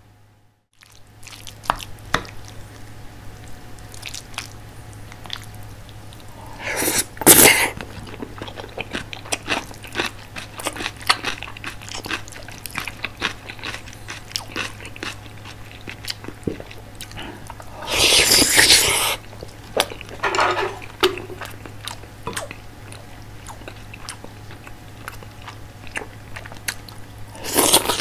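Close-miked eating sounds: a spoon mixing curry sauce into rice on a ceramic plate with many small clicks and scrapes, then chewing, broken by a few louder bursts. Near the end comes a loud bite and slurp of green onion kimchi.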